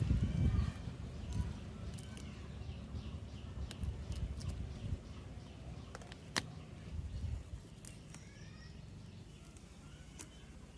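Quiet handling sounds: a few sharp clicks and light taps as fingers fit a plastic pipe into a small wet-cement post, after a short low rumble at the very start. Birds chirp faintly now and then behind them.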